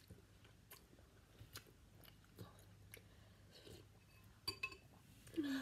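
Faint chewing and mouth smacks of a person eating noodles, with scattered small clicks, a little louder a little after four and a half seconds.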